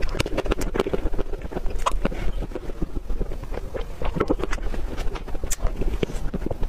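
Close-miked eating of mousse cake and whipped cream: wet mouth sounds of chewing and smacking, with many short sharp clicks, over a steady low rumble.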